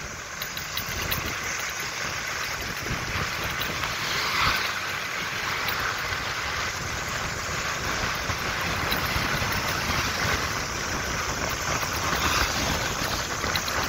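Steady rushing noise of wind and a moving vehicle's engine and road noise.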